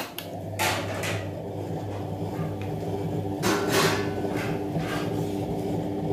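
Plastic cover of a table-top wet grinder being handled and fitted back on: a few separate knocks and clatters, the loudest about half a second in and again about three and a half seconds in, over a steady low hum.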